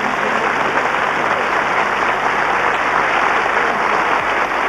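Large studio audience applauding steadily at the end of a musical number.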